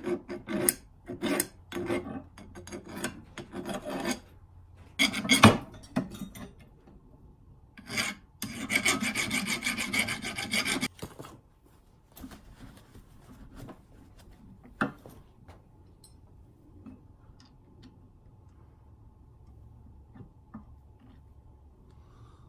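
Hand file rasping across a metal pin clamped in a bench vise, deburring it. Short strokes come about twice a second for the first few seconds, and a longer stretch of steady filing follows about eight to eleven seconds in. After that the sound turns much quieter, with a single sharp click.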